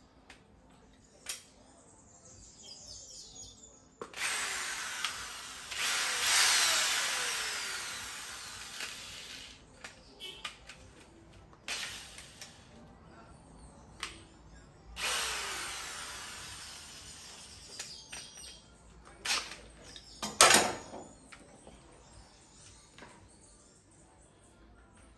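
Power drill boring holes through the sheet-metal rear body panel for plug welds. It makes two long runs with the motor pitch sliding down as each run fades, several short bursts between them, and a sharp knock near the end.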